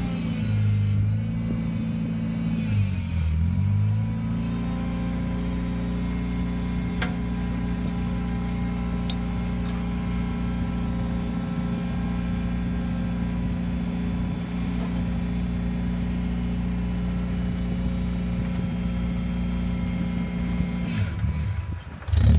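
Engine of a truck-mounted homemade log splitter running steadily, with a thin steady whine above it. Its pitch dips briefly and recovers about three seconds in and again near the end, each time with a short hiss.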